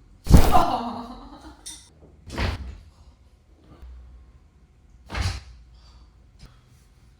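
Chiropractic adjustment thrusts heard as three sharp cracks, about two and a half seconds apart, the first the loudest.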